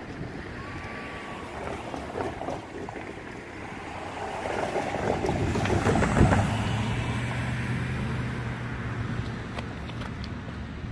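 A minivan drives over the railroad grade crossing close by, its tyre and engine noise building to a peak about six seconds in and then easing off into a steady low hum. Wind buffets the microphone.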